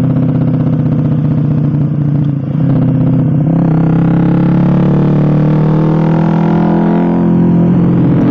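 Suzuki GSX-R150's 150 cc single-cylinder engine running through an aftermarket SC Project-style racing exhaust, cruising at an easy 50–60 km/h. The exhaust note dips briefly about two and a half seconds in, then settles lower and climbs slowly.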